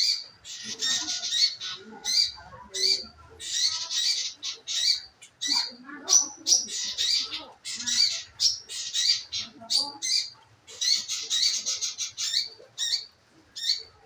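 Manggaran bird singing as a lure call: a fast, unbroken series of high chirps and buzzy trills, repeating in bursts with short gaps between them.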